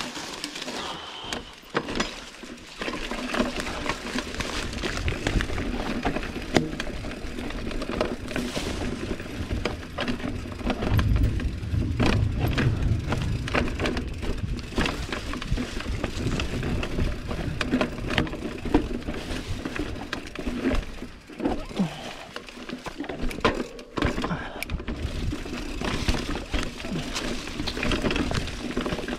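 GT Avalanche mountain bike ridden over a rough dirt trail: tyres crunching over dirt and stones, with a dense run of clicks and rattles from the chain and frame. Wind rumbles on the microphone for a couple of seconds near the middle.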